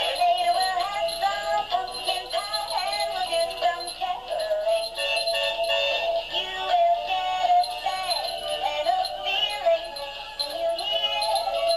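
Animated singing and dancing Christmas tree toy playing a Christmas song with a synthesized singing voice through its small speaker. The sound is thin, with almost no bass.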